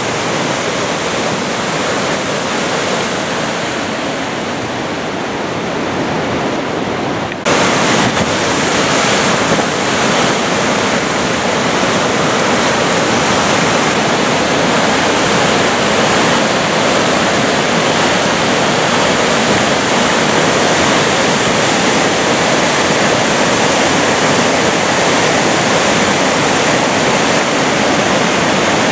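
Coquihalla River in flood, its churning floodwater rushing loud and steady. About seven and a half seconds in the sound jumps suddenly louder and brighter, then carries on steady.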